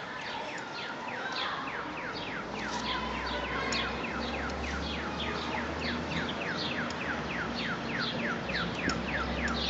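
Audible pedestrian-crossing signal chirping: a steady, evenly spaced train of short descending chirps, about four a second.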